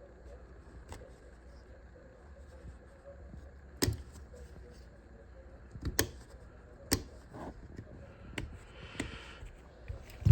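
Hard tool parts being handled: several sharp clicks and knocks, four louder ones spread through the middle, with a short rustle near the end.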